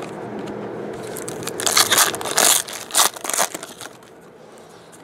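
Foil trading-card pack wrapper being crinkled and torn open by hand: a run of sharp, crackly crinkles from about a second and a half in, lasting about two seconds.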